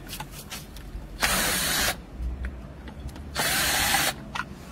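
Cordless drill-driver running in two short bursts about two seconds apart, with light clicks of handling between them, backing out the screws of an electric water pump's terminal-box cover.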